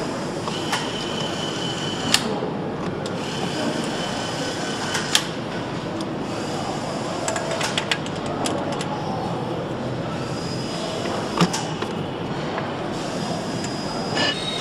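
Factory assembly-hall ambience: a steady machinery noise with scattered sharp metallic clicks and clinks from parts and tools being handled, a cluster of them about seven to eight seconds in.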